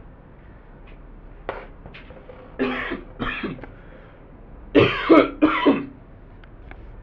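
A man coughing: two coughs about two and a half seconds in, then two louder, harsher coughs about five seconds in.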